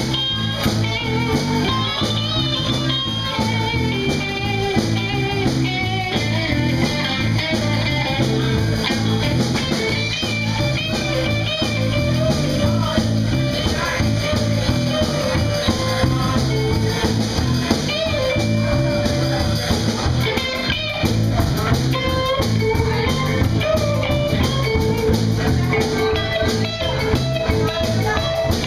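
Live blues band playing an instrumental passage: electric guitar playing bending lead lines over electric bass and a drum kit keeping a steady rhythm.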